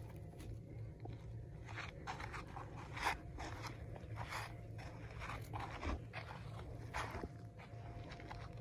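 Footsteps crunching on dry gravelly dirt: irregular steps, about one or two a second.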